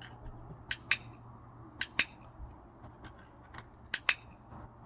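Handheld dog-training clicker clicked three times, each a sharp double click-clack from press and release. Each click marks a food reward coming for the puppy, pairing the sound with a treat to charge the clicker.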